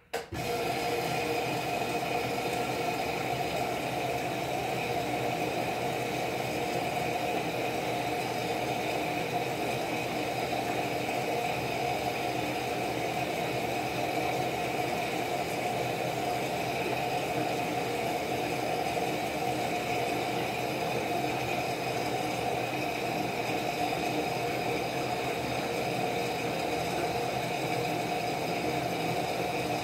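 Whirlpool Duet HE3t front-loading washer starting up: a steady mechanical hum with a whir starts suddenly just after the start and holds even.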